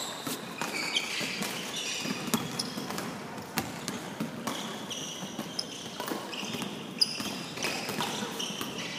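Basketballs bouncing on a hardwood gym floor, irregular knocks from several balls, with short high sneaker squeaks in the second half.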